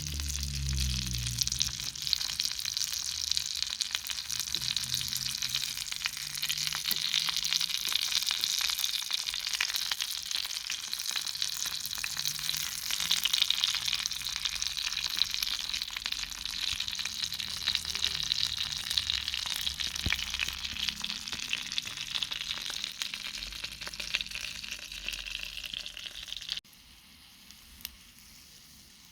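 Food frying in hot oil: a dense, steady sizzle with many fine crackles and pops, which cuts off abruptly near the end.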